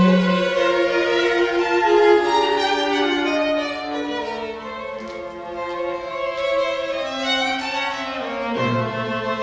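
Live string trio of violin, viola and cello playing a contemporary chamber piece: long, sustained bowed notes that overlap and shift pitch every second or so. A low cello note comes in near the end.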